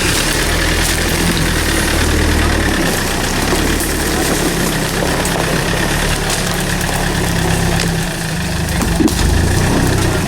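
Toyota Hilux 2.8-litre turbo-diesel engine running steadily at low revs, rising a little about nine seconds in, with a few short knocks over the top.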